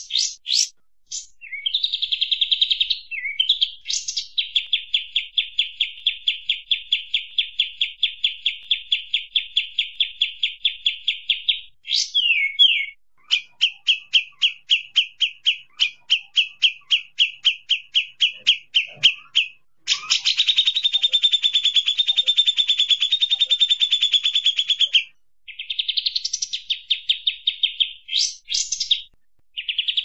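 Kapas tembak bird song: long runs of rapid, evenly repeated sharp high notes, about five a second, broken by short pauses, with a denser, buzzier chatter in the second half.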